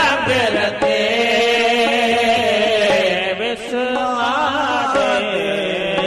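Sikh devotional kirtan: a sung melodic line gliding up at the start, then held notes with wavering ornaments, over steady instrumental accompaniment and light regular drum strokes.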